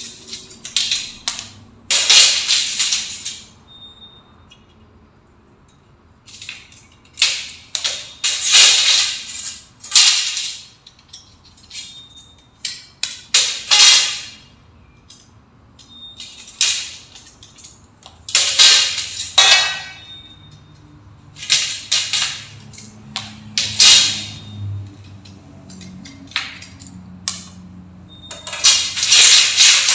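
Hands handling aluminium LED-strip profile channels and the strip being fitted into them: a series of short scraping, rustling noises, each lasting about a second, separated by quiet gaps, with a faint metallic ring now and then.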